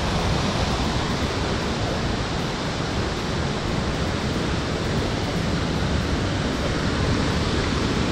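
Steady rush of a fast mountain creek running white over rocks.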